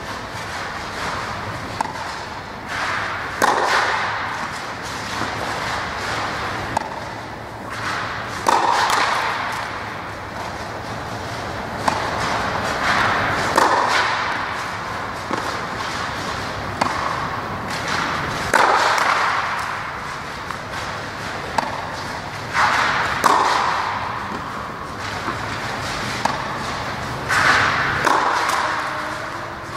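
Tennis balls struck with rackets in a practice rally: a sharp hit every few seconds with lighter ball bounces in between. Each hit rings on in the echo of an indoor hall.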